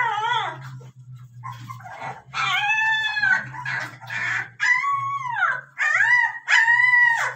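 Caucasian volkodav (Caucasian shepherd) puppies crying with high, drawn-out whines, about five in a row, each rising and then falling in pitch. A faint low steady hum runs underneath.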